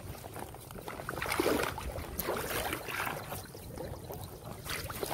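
Shallow water splashing and dripping as a wet trammel net is pulled by hand out of floodwater into a plastic basin, in irregular small splashes and trickles, heaviest in the first half.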